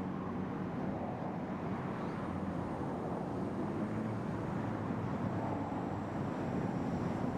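Steady low outdoor rumble with no distinct calls or sudden sounds.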